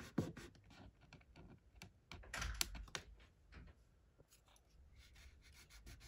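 Fingertips rubbing dried masking fluid off cotton watercolour paper: faint, scratchy rubbing with small ticks, loudest about two and a half seconds in.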